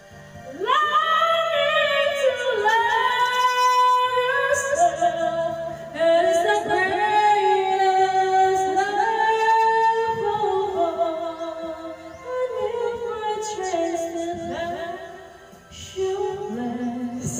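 A woman singing karaoke into a microphone: a melody of long held notes with vibrato and sliding pitch, broken by short pauses between phrases.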